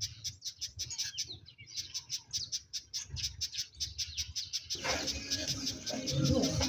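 Birds chirping: a rapid, even run of short, high chirps, several a second, with other faint sounds joining near the end.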